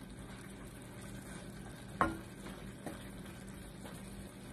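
Mushrooms and sardines sizzling softly in a wok while a wooden spatula stirs them, with one sharper knock of the spatula against the pan about two seconds in.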